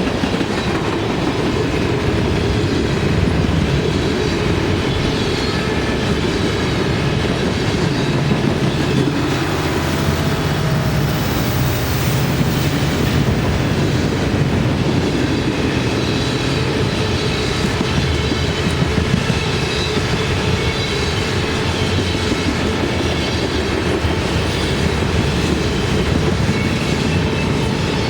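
A train rolling steadily past at close range, its cars' wheels running on the rails.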